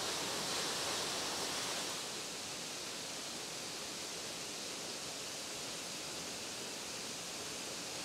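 Steady rushing of a waterfall, a constant even hiss of falling water that dips slightly about two seconds in.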